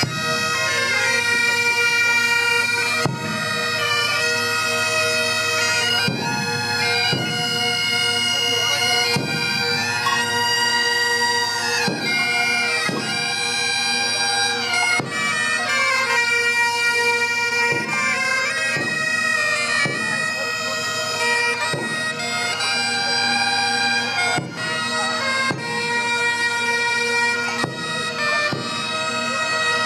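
Several bagpipes playing a tune together over a steady drone.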